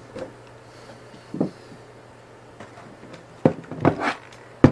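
A few short knocks and bumps from handling things on the workbench, the loudest just before the end, over a faint steady low hum.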